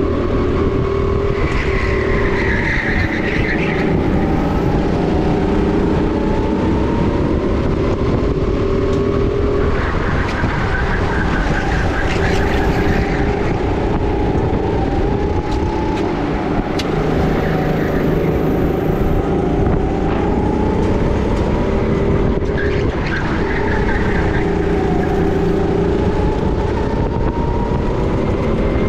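Sodi RT10 kart engine at race pace, heard on board; its pitch climbs and falls again and again as the kart speeds up on the straights and slows for the corners.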